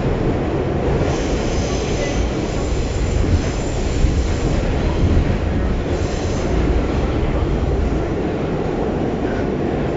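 New York City subway car running through a tunnel: a steady rumble of wheels on rails, with a faint high wheel squeal a second or so in and again about six seconds in.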